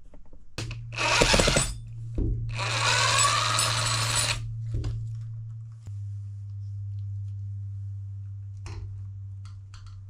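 A power drill runs in two short bursts, about a second and then nearly two seconds, while brackets are being taken off to be turned around. Underneath is a steady low hum, and a few light clicks come near the end.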